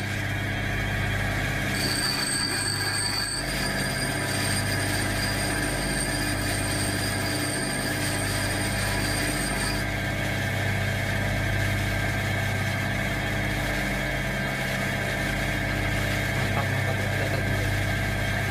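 Bench grinder running with a steady motor hum while the tip of an 8 mm stainless steel rod is ground to a point on its wheel. A high grinding whine sounds through the first half.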